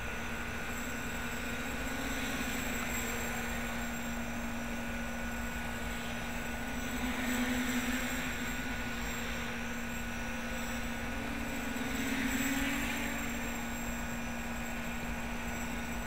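Quadcopter's four electric motors and 8x5 propellers buzzing steadily in flight, swelling louder and slightly higher twice, briefly, as it flies close.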